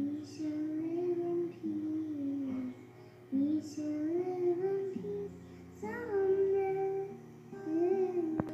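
A young girl singing a slow melody in phrases, with short pauses between them, over acoustic guitar accompaniment.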